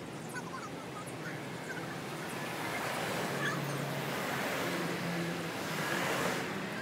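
Street ambience: a steady hiss of traffic that swells in the middle as cars pass, with a few faint short chirps.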